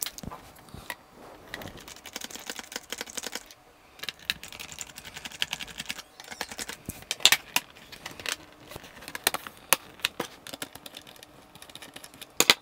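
A small screwdriver turning the screws of a Toshiba Satellite P845T laptop's bottom access panel: scattered light clicks and taps, with stretches of rapid fine ticking as the screws are worked loose.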